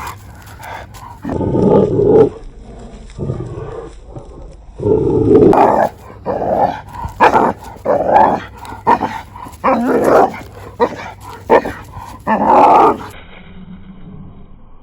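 Dog barking and growling in a run of short outbursts, which come thick and fast from about five seconds in and stop shortly before the end.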